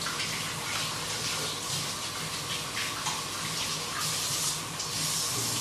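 Kitchen tap running steadily into a sink, with hands being rinsed under the stream.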